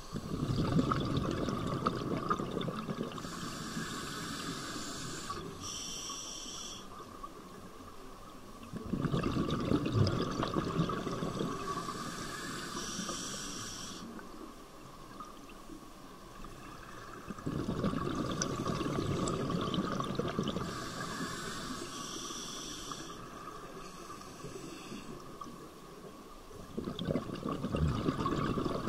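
Scuba diver breathing through a regulator underwater: a hissing inhalation through the demand valve alternates with a long rush of exhaled bubbles, about every eight to nine seconds, with four exhalations in all.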